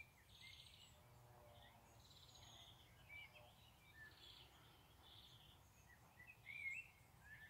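Faint outdoor birdsong: scattered short chirps and trills, a little louder near the end, over a quiet low background rumble.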